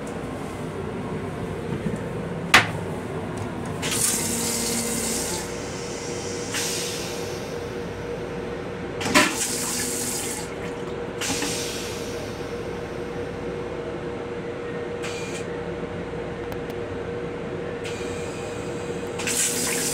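Metro-North M7 railcar toilet flushing: rinse water hissing into the stainless-steel bowl in several separate bursts that start and stop, with a sharp clack a couple of seconds in. A steady hum from the railcar runs underneath.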